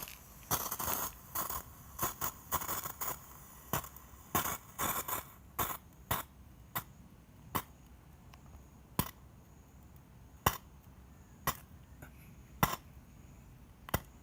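Toy fountain firework crackling: a rapid run of sharp pops that thins out after about five seconds to single pops roughly once a second as the fountain dies down.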